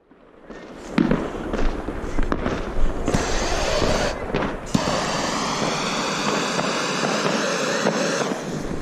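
Jet torch lighter hissing steadily for about five seconds as it is held to a firework fuse, cutting out briefly twice, then stopping near the end. A few sharp pops come before it.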